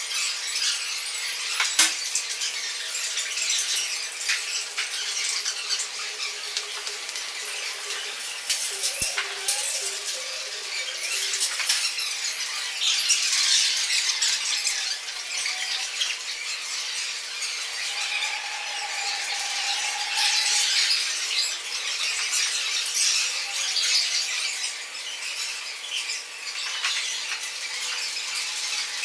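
Shards of broken drinking glasses clinking and scraping against each other as they are handled, a steady crackly rustle of many tiny clicks.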